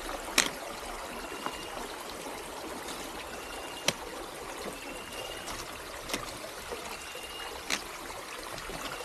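Steady outdoor hiss with a short high note repeating about every two seconds, and four sharp clicks of a trekking pole tip and footsteps striking rock.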